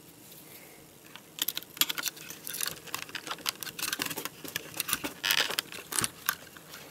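Fingers and fingernails clicking and scratching on laptop plastic while prying the black wireless antenna wire out of its routing channel. A fast, irregular run of small clicks and rubs starts about a second and a half in.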